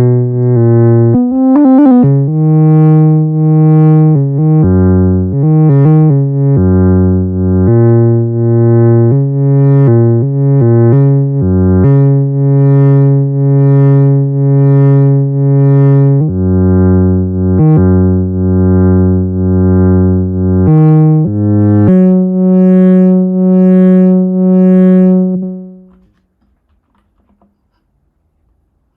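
Ringtone.Tools P_4L II Max for Live software synthesizer on its granular model, playing a sequence of low sustained notes that pulse a little faster than once a second and change pitch every few pulses. It stops a few seconds before the end.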